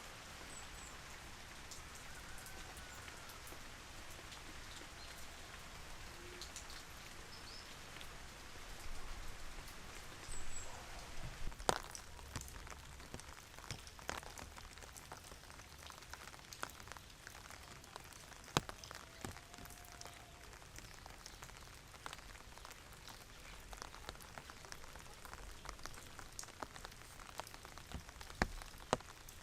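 Steady rain falling, with individual drops ticking on a hard surface, the drops becoming more distinct from about a third of the way in.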